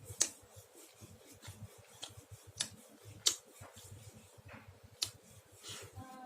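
Close-up eating sounds from a chicken mukbang: chewing and mouth noises with a handful of sharp clicks and crunches, the loudest near the start and about a third of the way in.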